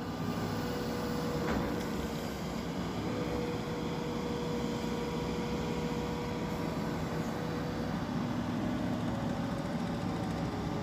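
Diesel engine of a barge-mounted Hitachi excavator running steadily, a continuous mechanical drone with a faint hum that shifts slightly in pitch a few seconds in.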